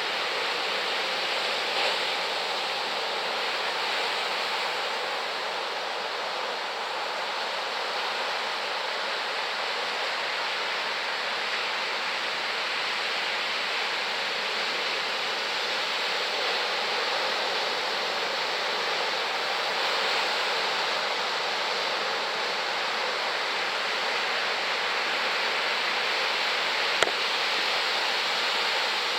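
Steady rush of large typhoon-swell surf breaking on the shore, an even, unbroken wash of noise. A single brief click sounds near the end.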